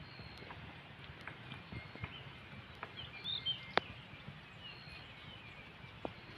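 Faint outdoor mountainside ambience with a low rumble, scattered light ticks and taps, and a few short high bird chirps a little past halfway, followed by one sharper click.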